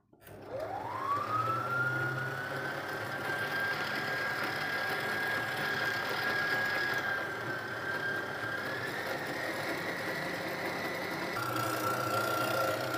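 Electric stand mixer motor kneading a stiff yeast dough: its whine rises as it spins up, then runs steadily. It climbs slightly in pitch partway through and drops to a lower steady pitch near the end.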